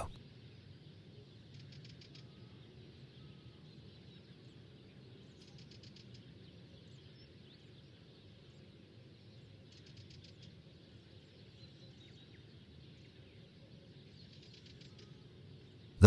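Near silence: faint outdoor natural ambience, with a faint high trill of rapid chirps repeating about every four seconds.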